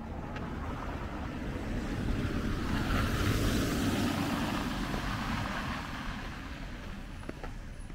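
A car driving past on a slushy, wet street: the tyre hiss and engine swell to a peak about three to four seconds in, then fade as it moves away.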